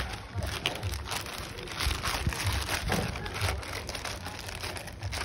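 Plastic courier mailer bag crinkling and rustling as it is handled and turned over, with irregular crackles and soft low thumps.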